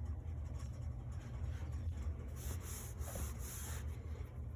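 Faint rubbing and scraping handling noise, with a few short scratchy bursts in the middle, over a steady low electrical hum.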